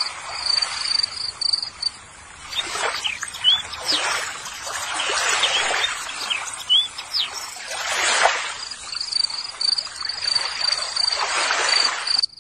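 Water swishing and splashing in a plastic tub as hands scrub toys in muddy water, in several separate swishes. A cricket trills steadily at first, stops about two seconds in and comes back past the middle, and a few short bird chirps sound in between.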